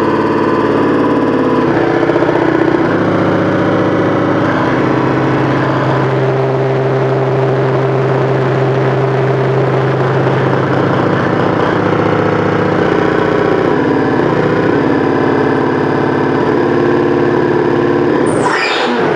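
Noise music: a loud, dense drone of many steady tones layered together, changing pitch in blocks every few seconds, with a quick falling sweep near the end.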